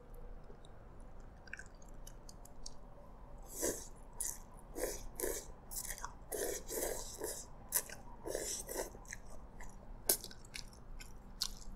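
A person slurping and chewing noodles in broth: a run of short, hissy slurps in the middle, then a few sharp clicks near the end.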